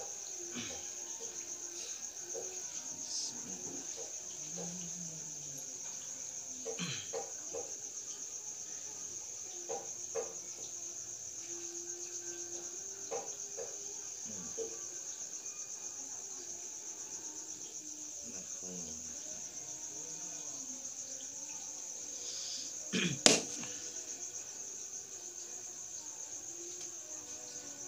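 Steady high-pitched chirring of crickets, with a few faint clicks and one sharp knock about five seconds before the end.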